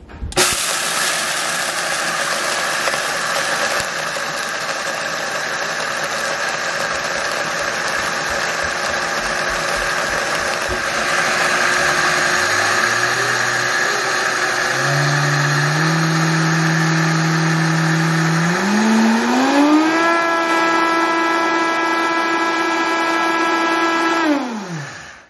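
Vitamix blender grinding whole coffee beans: it starts suddenly with a loud rattle of beans in the jar, and about halfway through a motor whine comes up and climbs in steps as the speed goes up. The whine holds steady for a few seconds, then falls away and stops near the end as the blender is switched off at a coarse, percolator grind.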